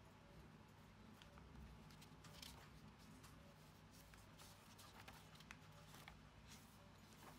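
Faint paper rustles as the pages of a handwritten notebook with sticky notes are handled and turned, over a low steady room hum.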